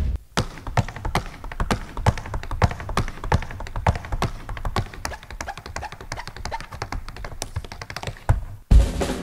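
Aluminum tap shoes striking a stage board in fast, irregular rhythms, a solo tap phrase of crisp clicks and heavier heel drops. Near the end a drum kit comes crashing back in.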